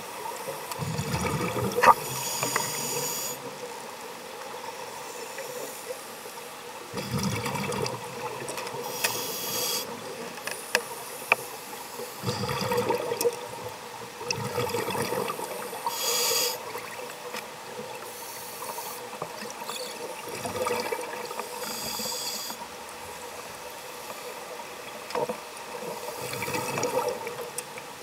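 Scuba regulator breathing heard underwater through the camera's housing: short hissing inhalations alternating with bursts of exhaust bubbles, every few seconds.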